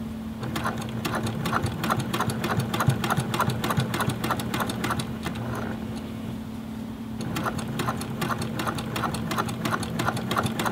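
Brother PQ1500S straight-stitch sewing machine running, its needle clattering rapidly as it topstitches a denim jeans hem with heavy Tex 80 jeans thread. It stops briefly a little past halfway, then starts again, with a steady low hum underneath.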